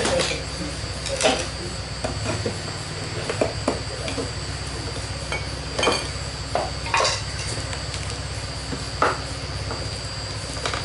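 Wooden crate packing being pried apart and handled: several scattered sharp knocks and clatters of wood, over a steady background hum.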